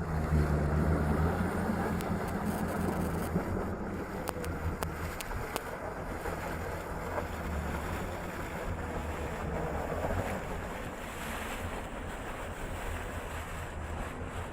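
A low engine drone under a steady rushing noise, the drone strongest in the first couple of seconds and then easing back.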